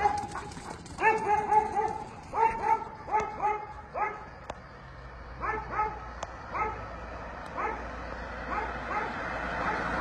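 Dogs barking in quick clusters of two to four sharp barks, again and again. From about halfway, an approaching car's engine and tyres grow steadily louder beneath the barking.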